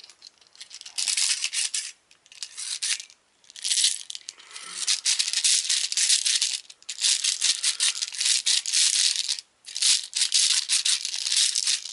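Plastic 6 mm airsoft BBs rattling inside a clear Crosman speed loader tube and spilling into a metal high-capacity M4 magazine as the loader is tipped and worked. The rattling comes in repeated bursts of one to a few seconds with short pauses between.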